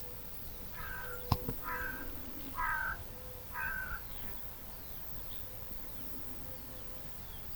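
A crow cawing four times, about a second apart. A single sharp knock comes between the first and second caws.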